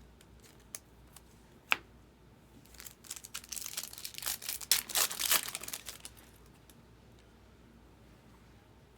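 A single sharp click, then about three seconds of crinkling and tearing as a trading card pack wrapper is torn open and handled.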